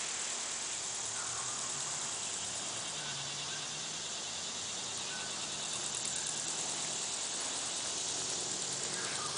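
Steady high-pitched chorus of insects chirping in rapid pulses, with a few soft clucks from the chickens now and then.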